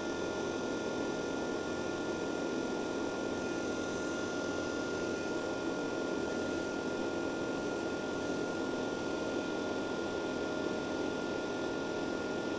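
Makisel Smart-350 mini inverter welder switched on but not welding, its cooling fan running with a steady whir and a steady high whine over it.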